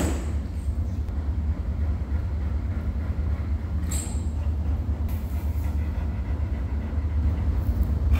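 A steady low rumble, with a brief higher-pitched scratchy sound about four seconds in.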